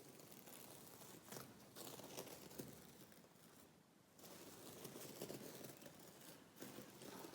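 Faint, close-miked ASMR scratching and crinkling: dry crackly rustling with small clicks, easing off about halfway through and then picking up again.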